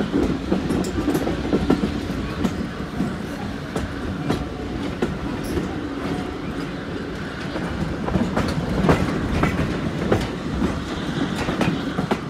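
Train running along the track: a steady rumble with irregular sharp clicks from the wheels passing over rail joints.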